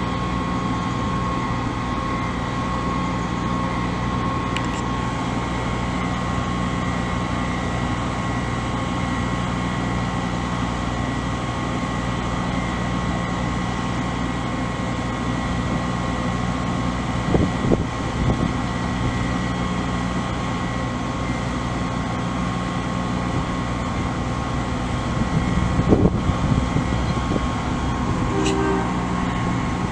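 Ladder fire truck's diesel running steadily with a constant high whine over the low rumble, and a few brief knocks about 17 and 26 seconds in.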